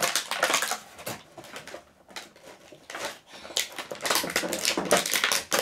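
Plastic packaging rustling and crinkling in bursts, with small clicks, as a toy piece is worked free of it.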